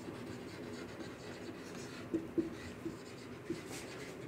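Marker pen writing on a whiteboard: the felt tip rubs and gives several short faint squeaks as words are written, most of them in the second half.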